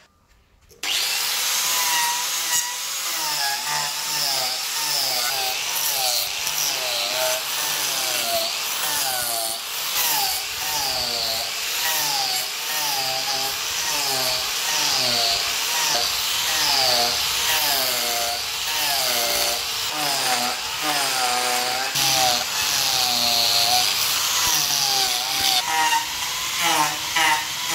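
Electric angle grinder with a sanding disc running against wood, starting about a second in. Its whine keeps rising and falling, about once a second, over a steady gritty rasp.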